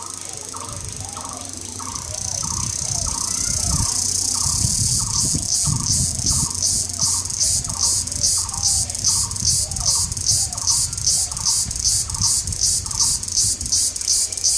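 A bird repeating one short call note over and over, about twice a second, against a shrill high insect buzz. The buzz swells over the first few seconds, then pulses evenly about three times a second, and is the loudest sound. A low rumble runs underneath.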